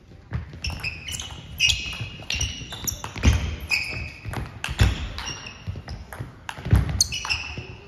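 Table tennis rally: the celluloid-type ball clicking off bats and table in quick succession, with heavy thuds of footfalls and high squeaks of sports shoes on the hall floor as the players move.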